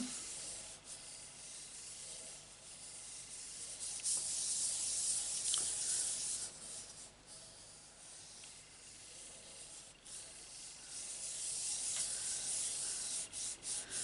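Fingers rubbing firmly over the back of a sheet of card laid on an inked background stamp, a continuous dry swishing of skin on paper that presses the card onto the stamp to pick up the ink. The rubbing grows louder for a few seconds in the middle, eases off, and picks up again near the end.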